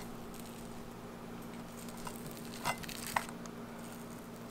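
Knife cutting into the charred, crisp skin of a whole grilled snakehead on a ceramic platter: a few short crackles and scrapes, the sharpest about three seconds in, over a steady low hum.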